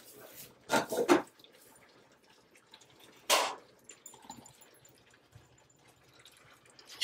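Pot of black beans simmering and bubbling faintly, with a few louder pops about a second in and a short hiss about three seconds in.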